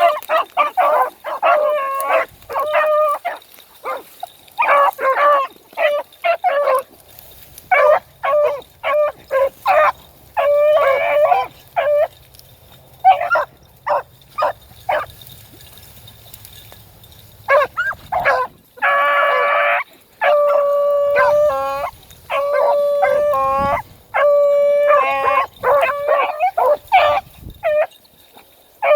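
Beagles baying as they trail a rabbit, giving short choppy barks that come in quick runs, then longer drawn-out howling bawls after a short lull past the middle.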